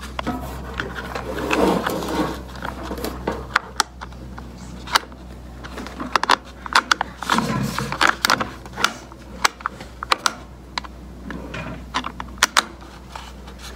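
Irregular sharp plastic clicks and handling clatter, with some rubbing, as the side cover and red bar-tightening knob of an electric Craftsman chainsaw are pressed on and turned by hand.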